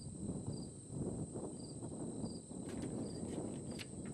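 Crickets chirping in the surrounding grass: a steady high trill, with short chirps repeating about every two-thirds of a second. Underneath is low, irregular rustling from the pages of a paperback catalog being handled and turned.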